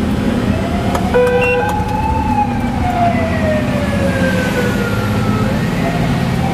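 Fire engine siren wailing in one slow rise and fall, starting to rise again near the end, over the steady low hum of the vehicle's engine. A short electronic beep sounds about a second in.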